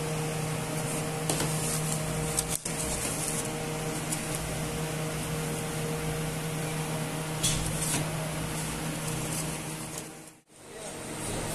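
Steady low mechanical hum with a few light clicks and knocks as food is served from a large aluminium cooking pot into foam takeaway containers. The sound drops out briefly near the end.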